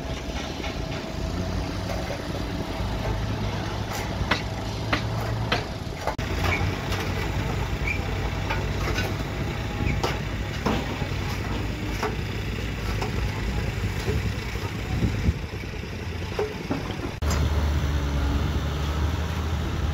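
Construction-site noise: a steady low engine hum with scattered knocks, clicks and scrapes of tools. The hum shifts and grows louder near the end.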